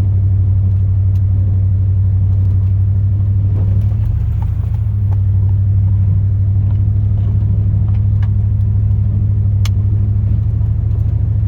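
Steady low drone of a 2002 Chevrolet Silverado's 8.1-litre big-block V8 and driveline, heard inside the cab, with a few faint ticks and one sharp click near the end.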